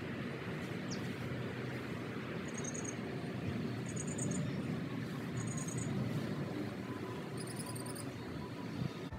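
Small songbird on an overhead wire giving four short bursts of rapid, very high chirps, a second or two apart, over a steady low background rumble.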